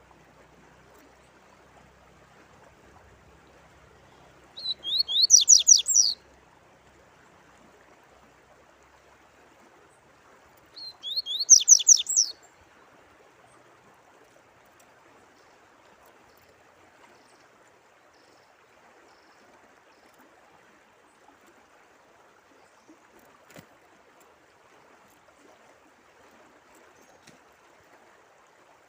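A songbird singing two short phrases of rapid high notes, about six seconds apart, over a steady background of running water like a small stream.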